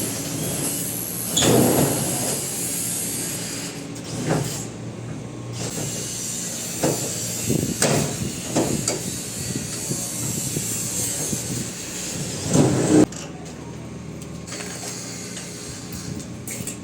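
Metal roll-up garage door being worked, with several clanks and scrapes over a steady background noise. The loudest comes near the end, just before the noise drops off sharply.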